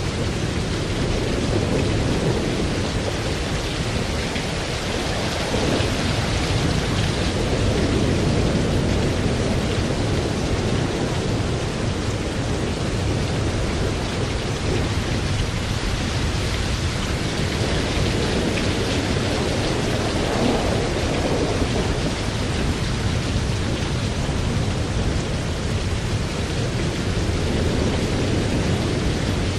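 Thunderstorm: steady rain falling, with low rolling thunder rumbling on and off underneath and no sharp cracks.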